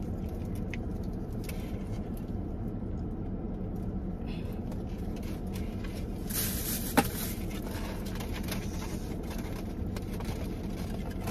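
Steady low rumble of a car's running engine heard inside the cabin. About six seconds in comes a short stretch of light rustling, with a single sharp click near seven seconds.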